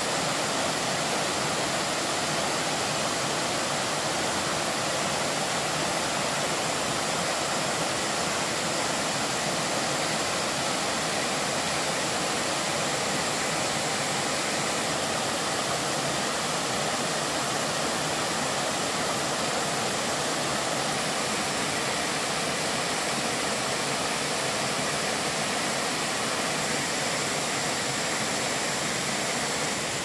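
Water rushing steadily over a low, wide cascade of rock ledges.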